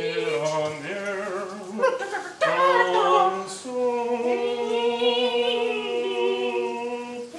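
A voice singing a few short phrases, then holding one long note through the second half.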